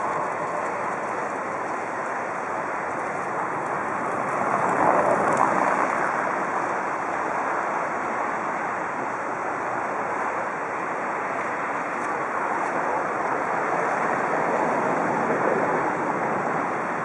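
Steady outdoor rushing noise of wind on the microphone and distant city traffic, swelling briefly about five seconds in.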